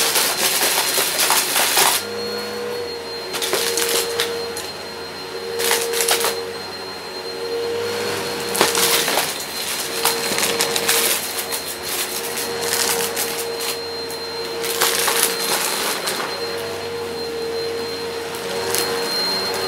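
Shark upright vacuum running steadily with a motor hum and a high whine, its brushroll sucking up shredded cardboard pieces from carpet. The cardboard crunches and rattles through the machine in spells every few seconds as the head passes over the pile.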